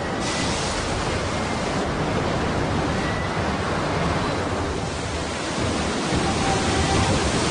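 Choppy sea water rushing and splashing along a moving boat's hull: a steady wash of water noise.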